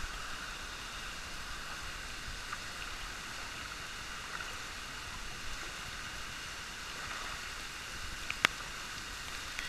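Steady rushing of stream and waterfall water, with a single sharp click, such as a step or knock on rock, near the end.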